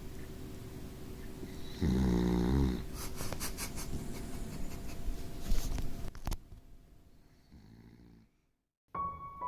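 Beagle puppy snoring in its sleep, with one loud, drawn-out snore about two seconds in, followed by a few seconds of clicks. The sound fades out and piano music starts near the end.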